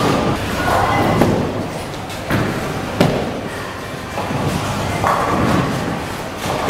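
Bowling alley din: balls rolling and sharp knocks from balls and pins, with the loudest knock about three seconds in.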